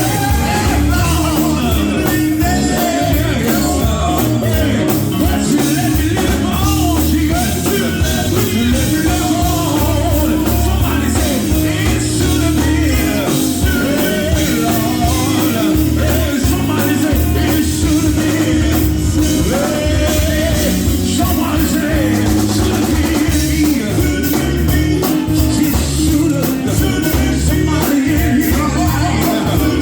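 Live gospel band playing loudly and steadily, with a heavy bass line and singing over it.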